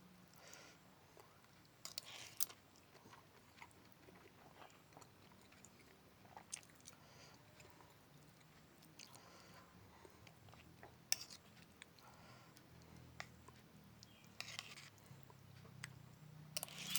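Close-up mouth sounds of someone chewing pepes ikan mas, carp cooked in banana leaf: quiet chewing with a handful of sharp smacks and clicks spread through, over a faint low hum.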